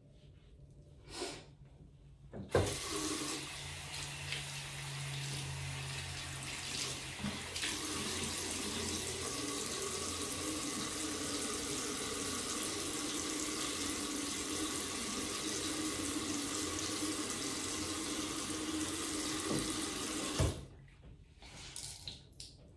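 Bathroom sink tap turned on with a knock a couple of seconds in, water running steadily into the basin, then shut off abruptly a couple of seconds before the end.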